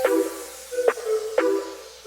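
Background music: a few struck, mallet-like notes over a hissing swish that falls away.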